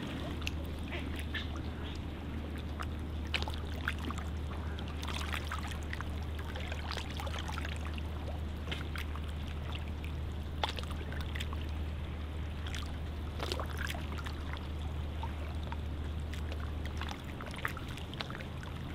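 Water trickling and lapping among shoreline rocks, with many small scattered clicks and splashes. A steady low rumble underneath drops away near the end.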